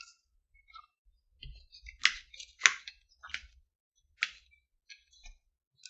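Plastic screw cap on a small drink carton being twisted open: a handful of separate sharp clicks, the loudest about two and a half seconds in.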